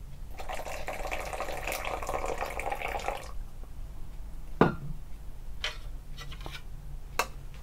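Hot water poured into a plastic measuring jug for about three seconds, followed by a single knock and a few light clicks.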